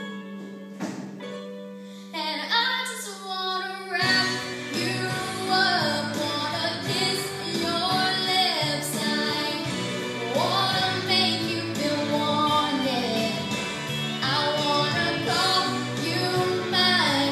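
A singer's voice, sounding female, sings over instrumental accompaniment in a wedding sound check. A held low note carries the first few seconds; the voice comes in, and a fuller backing with bass enters about four seconds in.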